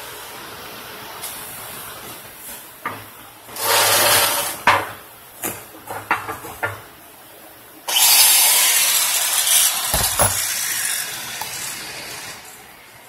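Workshop tool noise: scattered clicks and knocks over a faint hum, a short loud hissing burst about four seconds in, then a longer loud hiss from about eight seconds in that dies away near the end.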